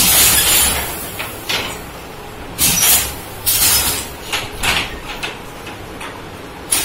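Jacquard handloom running: repeated loud clattering, swishing strokes from the shedding and beating mechanism, about one a second at uneven intervals.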